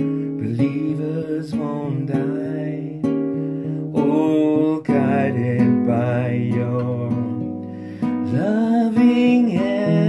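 Music: a strummed acoustic guitar playing chords, with a wavering melody line that slides between held notes above it.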